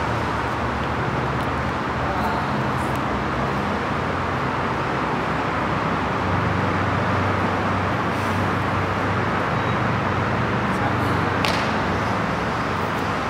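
Steady road-traffic noise with a low engine hum, with two faint clicks about 8 and 11 seconds in.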